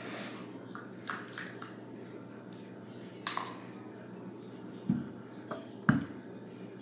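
Handling noises from small plastic toy pieces being moved and set down: a few light clicks about a second in, a sharper click a little after three seconds, and two duller knocks near the end, the last the loudest.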